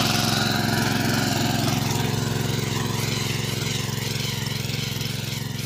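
Small air-cooled engine of a 7.5 hp power weeder running steadily under load as its rotary tines till dry soil, gradually getting quieter.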